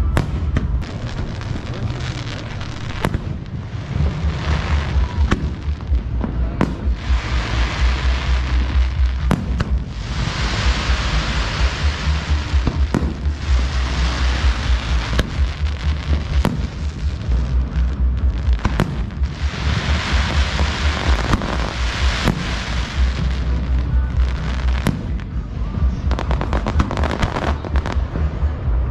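Fireworks display: sharp bangs going off one after another, with long stretches of dense crackling and a heavy low rumble underneath.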